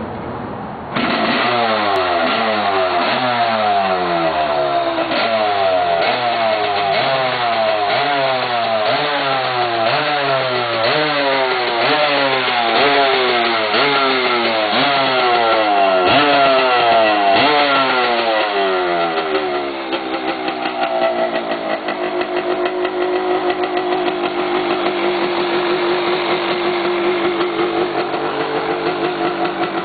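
1983 Suzuki RM 250's two-stroke single-cylinder engine kicked into life about a second in, on its first start after two years in storage. The throttle is blipped roughly once a second, the pitch sweeping up and dropping back each time, then after about twenty seconds it settles into an uneven, fluttering idle.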